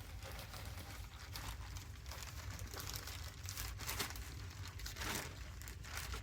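Dry grass and kindling being handled while a fire is laid, giving faint crinkling rustles at irregular moments over a steady low rumble.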